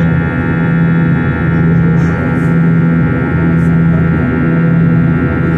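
Airbus A321-231's IAE V2500 turbofan engines running in flight, heard inside the cabin from a window seat beside the engine: a steady loud drone made of several held tones. A low hum in it swells and fades every couple of seconds.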